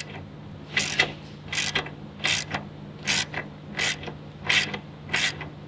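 Socket ratchet wrench worked back and forth on a motorcycle frame bolt, a short burst of pawl clicks on each return stroke, about one stroke every three-quarters of a second.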